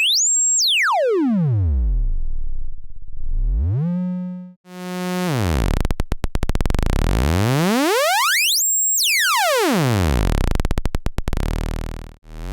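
Weston Precision Audio TZO through-zero VCO, a Eurorack synthesizer oscillator, playing a buzzy tone rich in overtones. The tone glides up and down across several octaves, from a low hum to a high whine and back. The sound cuts out briefly about four and a half seconds in and again near the end, with a harsher, noisier tone in between.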